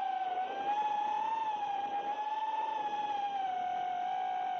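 Whine of an FPV freestyle quadcopter's brushless motors (iFlight Xing 2206 2750kv) spinning Ethix S3 propellers, picked up by the camera on board the drone. The pitch stays high and drifts slightly up and down as the throttle changes.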